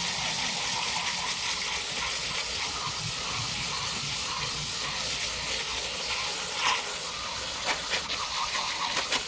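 Garden hose spraying a steady hiss of water over an air conditioner's outdoor condenser coils, rinsing off foaming coil cleaner. A few light knocks come near the end.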